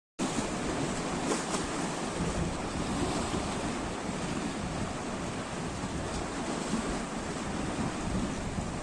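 Sea waves washing steadily, with wind buffeting the microphone and making a gusty low rumble.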